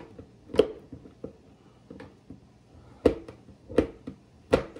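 A butter knife stabbing and chipping at hard cocoa butter in its container to break it into smaller chunks. It makes a run of irregular, sharp knocks with fainter ticks between.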